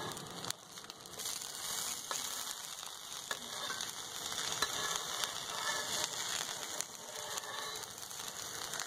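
Oil sizzling steadily under bread sandwiches shallow-frying in a pan, with a few light clicks of metal tongs as the sandwiches are turned over.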